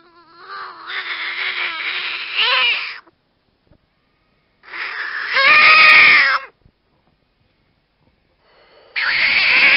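Ornate horned frog calling: three long, wavering calls with pauses between them, each starting and stopping abruptly.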